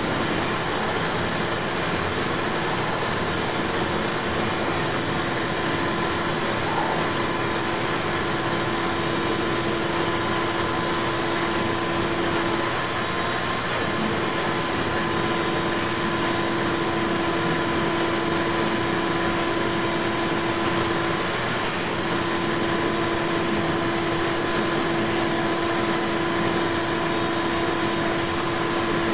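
Ridgid shop vacuum running steadily, its hose sucking dust and debris off a disassembled chainsaw.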